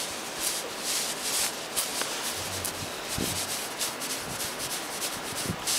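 A hand rubbing and scrubbing a kitten's fur against a fabric mattress pad close to the microphone: repeated scratchy, rustling swishes.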